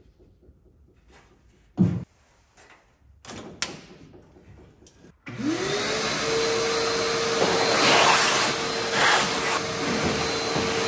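A few wooden knocks as a 2x4 roof brace is handled in the car shell. Then a shop vacuum switches on about five seconds in: its motor whine rises quickly and holds steady under a loud rush of air.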